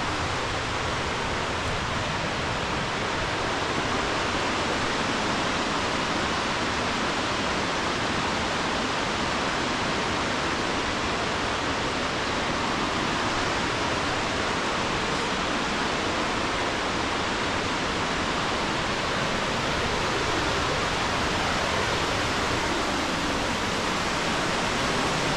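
Steady rushing of a nearby mountain creek or waterfall, an even hiss that holds the same level throughout.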